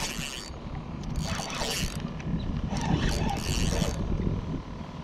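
Penn Battle II 2500 spinning reel being cranked in three short spells, a whirring rattle, while a hooked fish is played, over a steady low rumble.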